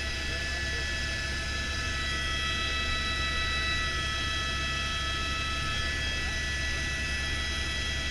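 Helicopter in flight heard from inside the cabin: the turbine and rotor make a steady drone with several high, constant whining tones over it.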